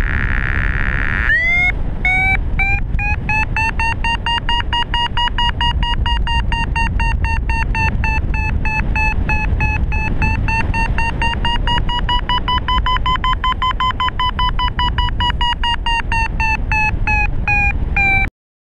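Paraglider variometer giving its climb tone: rapid beeps from about a second in, the pitch slowly rising and then easing slightly near the end, the sign of the glider climbing in a thermal. Steady wind rush on the microphone runs underneath, and the sound cuts off suddenly just before the end.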